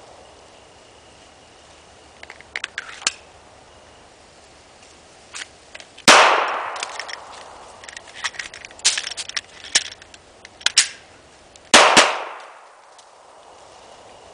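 Handgun shots with an echoing tail: one shot about six seconds in, then two quick shots near the end, a double tap. Lighter clicks and rattles come in between.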